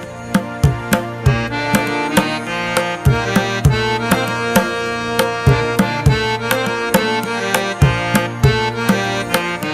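Background music: a sustained pitched melody over a steady beat of percussive drum strikes.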